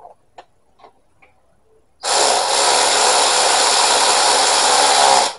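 A few light clicks, then a loud, steady power-tool whir that starts abruptly about two seconds in and cuts off suddenly about three seconds later.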